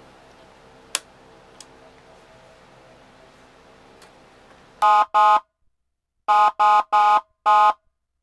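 Federal Signal PA300 siren's electronic horn tone blown in six short, buzzy, steady-pitched blasts, two and then four, starting about five seconds in. Before them a faint hum and a single switch click about a second in.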